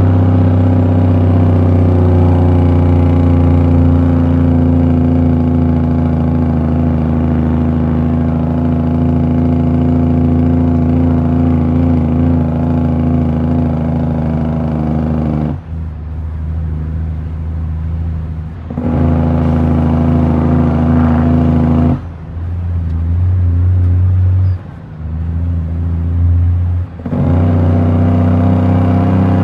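Heavy truck's diesel engine running steadily under way, heard from inside the cab. The engine sound drops away briefly four times in the second half, then comes back up.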